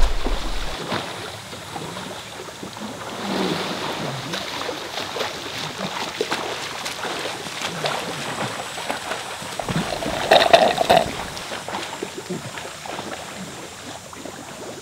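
A swimmer doing front crawl in a pool: continual splashing of arm strokes and kicking water, louder about ten seconds in.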